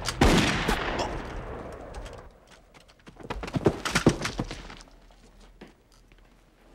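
Gunfire: a quick volley of sharp shots right at the start, ringing away over about two seconds, then a few more, quieter cracks about four seconds in.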